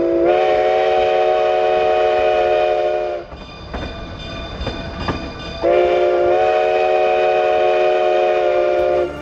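Steam locomotive whistle sounding two long blasts, each a chord of several notes, about two and a half seconds apart. Between the blasts the train runs with a rumble and some clicks.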